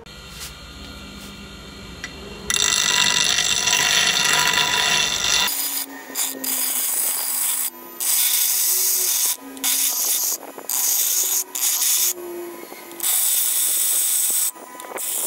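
A metalworking tool rasping against iron axle parts. It runs steadily for the first few seconds, then comes in repeated passes of about a second each with short pauses between them.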